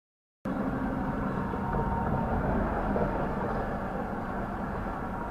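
Silence for about half a second, then the sound cuts in suddenly as a steady low rumble of vehicle and road traffic noise.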